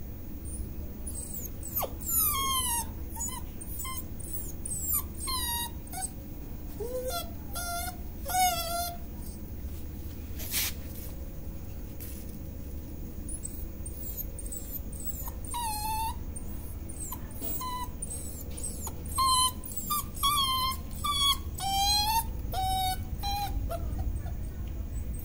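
Puppy whimpering: a run of short, high-pitched whines that fall in pitch, in two spells with a quiet gap of several seconds between them.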